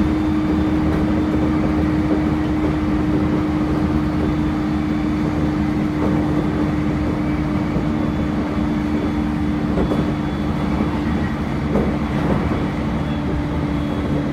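E531 series electric train with Hitachi IGBT-VVVF drive running at speed, heard from inside the carriage: a steady rumble of wheels on rail with a constant hum.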